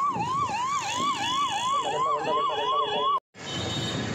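Electronic siren wailing rapidly up and down, about three to four sweeps a second, with other steady tones joining about two seconds in. It breaks off abruptly just past three seconds.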